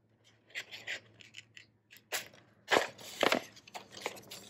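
Scissors cutting paper: a series of short, irregular snips, louder in the second half.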